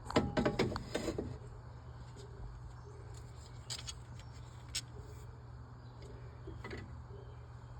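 Low steady hum with a few faint, scattered clicks and taps.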